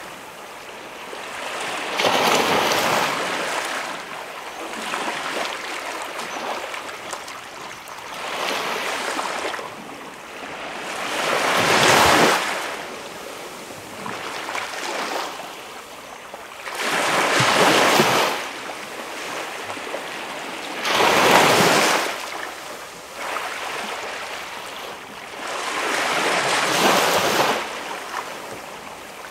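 Small waves breaking and washing up on a calm beach, each swell of surf rising and falling every three to four seconds. Some swells are louder than others.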